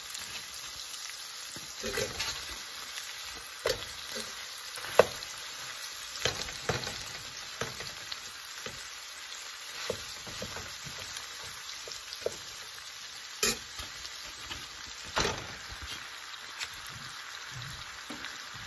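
Ground sausage, celery and onions sizzling steadily in a hot skillet, with a metal spoon stirring and knocking against the pan every second or two; the sharpest knock comes about five seconds in.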